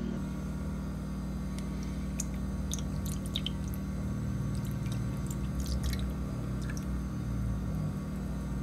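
Marinade poured from a glass measuring cup over slabs of tofu in a glass baking dish, with a few faint drips and light clicks, over a steady low hum.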